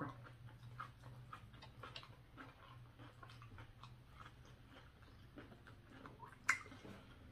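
Faint chewing and biting of roasted okra and grilled kebab meat, with soft wet mouth clicks scattered throughout. One sharper click stands out about six and a half seconds in.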